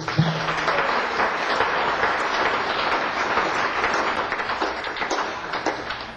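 Audience applauding at the end of a live acoustic song, steady and then dying down a little near the end.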